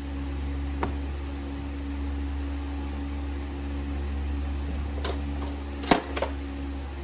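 A few sharp metal clicks and taps as a horseshoe is handled against a horse's hoof resting on a hoof stand, the loudest about six seconds in, over a steady low hum.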